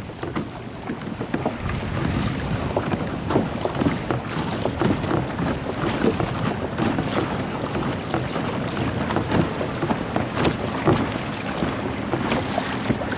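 Water splashing and lapping against the hull of a Hobie Mirage Sport pedal kayak under way, many small irregular splashes, with wind buffeting the microphone.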